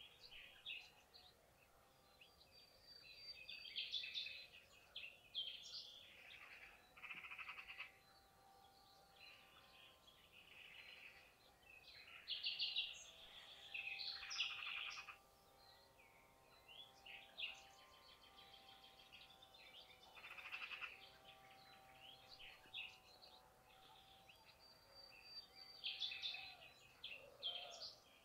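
Several wild birds calling and singing faintly, with short chirps and repeated rapid trills of about a second each, overlapping and spaced by short lulls.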